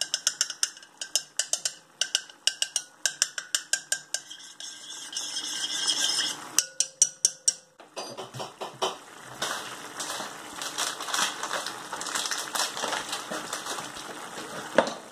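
A metal spoon stirring melting butter in a small enamel saucepan, clinking rapidly against the pan several times a second, with brief pauses. After about eight seconds the clinking gives way to quieter, noisier handling sounds with scattered clicks.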